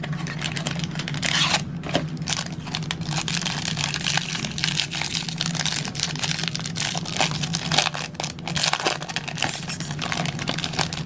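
Crinkling and rustling of trading-card packaging as cards are unwrapped and handled, dense irregular crackles over a steady low hum.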